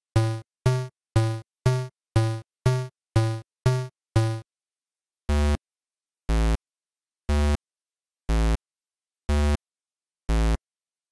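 Synthesized electronic music: a run of short, fading synth notes about two a second, then six longer held notes about a second apart.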